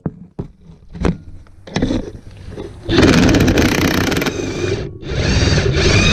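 DeWalt cordless impact wrench hammering on a strut rod nut in two bursts, the first about a second and a half long and the second just under two seconds, after a few light clicks. The nut does not come off this way: a wrench is needed to hold the bolt on top.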